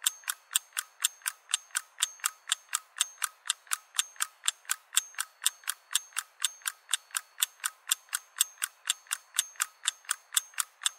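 Ticking sound effect: an even run of sharp clicks, about four or five a second, like a clock ticking.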